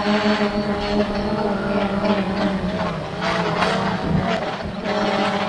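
DJI Phantom 4 Pro quadcopter's motors and propellers humming close up, heard from a camera strapped to the drone, the pitch wavering a little as it flies.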